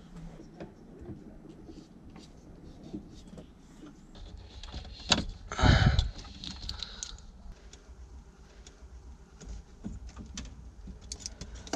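Hands handling electrical wiring and spade connectors at a boat's breaker switch panel: scattered small clicks and rustles, with a louder scuffing bump about five and a half seconds in.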